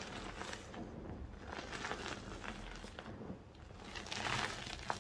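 Crumbled gym chalk squeezed and crushed between bare hands, a soft crunching and rustling of powder with small crackles. It swells loudest about four seconds in, with a sharp tick just before the end.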